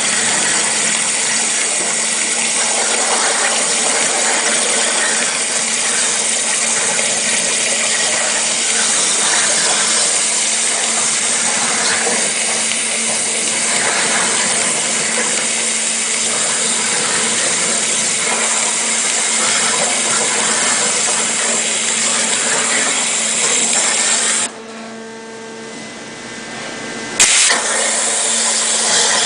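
Waterjet cutter's high-pressure jet cutting a metal panel: a loud, steady hiss over a low hum. Near the end the hiss drops away for nearly three seconds, leaving only the hum, then comes back with a sharp crack.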